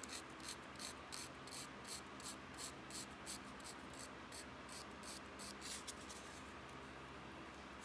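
Fine 320-grit sandpaper rubbed back and forth over a small metal refrigerator light-switch contact, faint quick scratchy strokes about three a second, cleaning soot and corrosion off the contact. The strokes stop shortly before the end.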